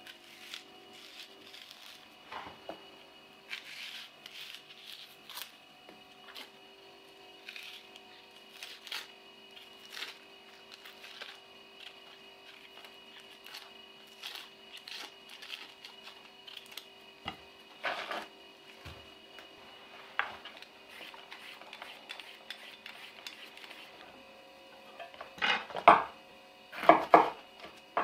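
A chef's knife peeling the dry skin off a red onion: soft scrapes and small scattered clicks. Near the end come a few louder knocks on the bamboo cutting board.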